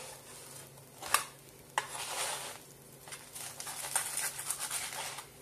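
Kitchen handling noises as the finished toast is dealt with: a few sharp knocks and clinks of metal utensils and cookware, and two stretches of scraping or rustling.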